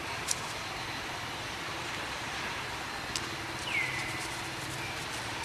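Steady outdoor background with a low hum of distant motor vehicles and two faint clicks. About four seconds in comes one short, high call that falls in pitch.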